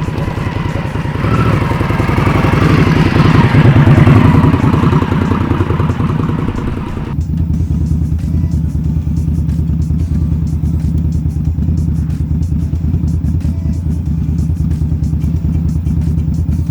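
2020 Indian Scout Bobber Twenty's 1133 cc V-twin engine running: a louder, fuller stretch building to a peak about four seconds in, then, after an abrupt change about seven seconds in, a steady, even idle.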